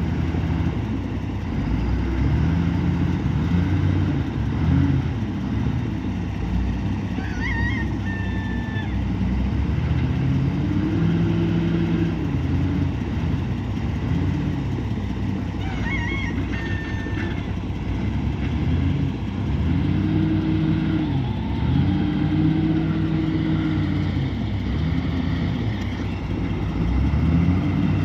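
Komatsu WA470 wheel loader's diesel engine revving up and down again and again as it works under load moving logs. A short high-pitched squeal comes twice, about eight seconds apart.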